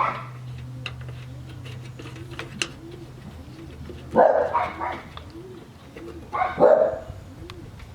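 A dog barking twice, about four seconds in and again near the end, over scattered small clicks and a low hum that stops about four seconds in.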